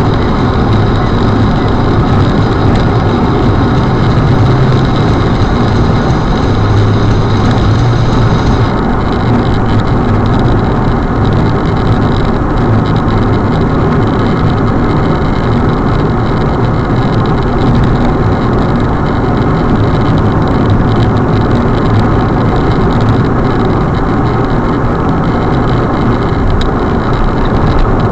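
Steady engine and road noise from inside a car driving at highway speed, picked up by a dashcam microphone.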